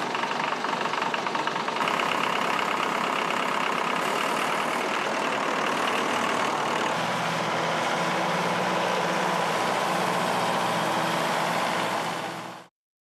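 Vintage Farmall diesel tractor engine running steadily, cutting off abruptly near the end.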